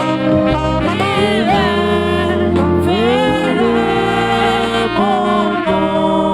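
Gospel music: a melody of long held notes that slide up and down between pitches, over sustained instrumental accompaniment.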